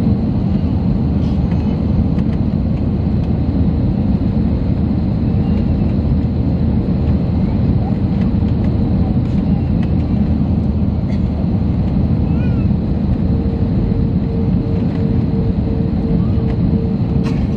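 Airliner cabin noise over the wing of an Airbus A320-family jet on final approach: a steady, loud rumble of engines and airflow. Near the end, a faint hum in the noise begins to pulse evenly.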